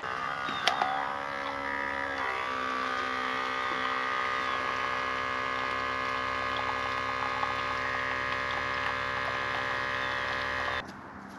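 Outin Nano portable electric espresso maker's pump running with a steady hum while brewing a shot. Its tone shifts slightly about two seconds in, and it cuts off suddenly near the end.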